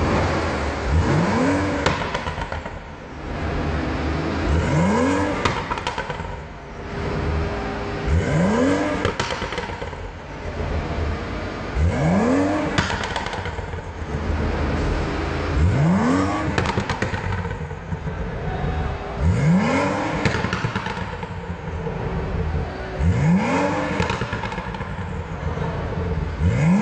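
BMW 235i turbo straight-six with an aftermarket "PP" exhaust being blipped again and again: the revs shoot up sharply about every three to four seconds and fall back to idle, with crackles as they drop.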